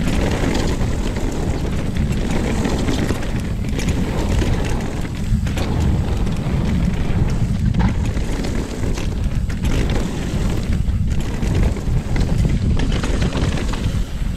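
Mountain bike riding down a dirt trail: wind buffeting the chest-mounted action camera's microphone as a loud, steady rumble, with tyre and trail noise over it.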